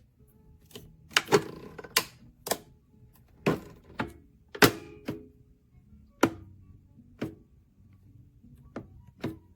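About a dozen sharp, irregular clicks and knocks of hard objects being handled, some with a short ring after them.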